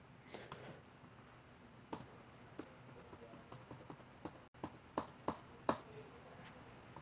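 Computer keyboard keys being pressed: faint, irregular single clicks, a dozen or so, with a few louder ones in the second half. These are backspace presses pulling the text lines up.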